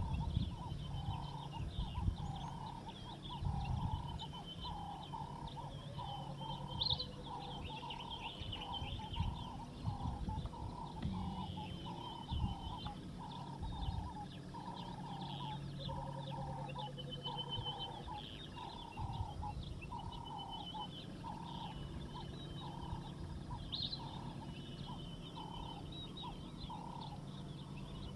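Outdoor nature ambience: short animal calls repeating about twice a second, higher chirps over them, and a low rumble with a few low thumps underneath.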